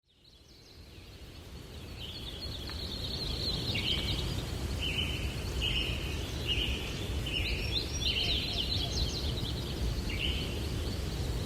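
Forest ambience: birds chirping and calling in short repeated phrases over a steady low rumble, fading in over the first few seconds.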